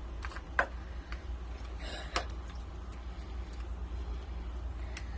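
A utensil spreading meat sauce in a crock pot: a few scattered light clicks and a soft scrape against the pot, over a low steady hum.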